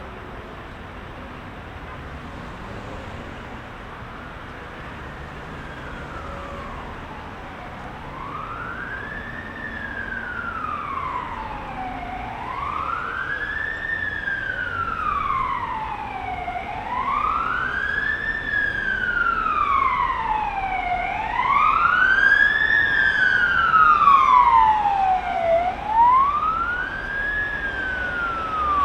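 Emergency vehicle's wailing siren, sweeping slowly up and down in pitch about once every four to five seconds and growing louder as it approaches, over the steady hiss and rumble of heavy city traffic.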